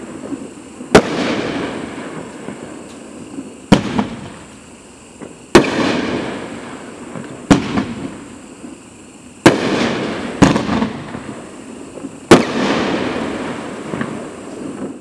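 A 500 gram consumer fireworks cake firing aerial shells: seven sharp bangs, roughly every one to two seconds, each followed by a crackling tail that fades.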